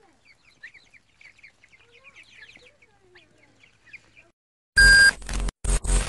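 A flock of poultry peeping softly and steadily, many short high calls with a few lower sliding calls among them. Near the end the sound drops out briefly and a loud music jingle starts.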